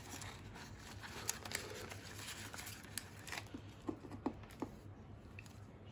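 Faint rustling and crinkling of a clear plastic cash envelope being handled, with a scatter of light clicks and ticks.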